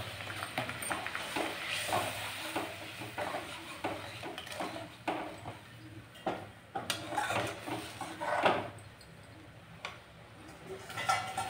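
A steel spoon stirring curry gravy in a black kadhai, with repeated scraping and clinking of metal on the pan over the gravy's light sizzle. The clinks thin out near the end.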